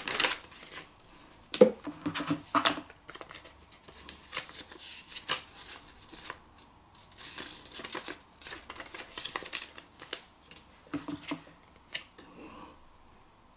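Paper and cardboard being handled: printed manuals and cards rustling, sliding and tapping as they are taken out of a product box, with scattered sharp clicks and short rustles.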